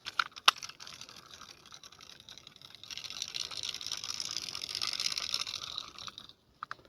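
A fishing reel being cranked to retrieve line: a fast, even mechanical whirring tick after a couple of sharp clicks at the start, growing louder about three seconds in and stopping just after six seconds.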